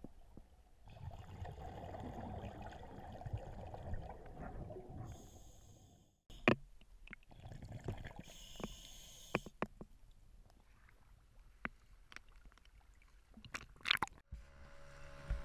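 Muffled underwater noise picked up by a dive camera in a lake: a rumbling wash of water for the first few seconds, then after a cut scattered sharp clicks and knocks. Near the end it cuts to a steady motor hum.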